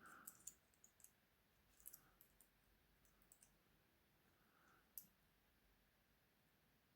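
Faint, scattered light metallic clicks and taps of wire picks working inside a two-lever padlock's keyway, with one sharper click about five seconds in.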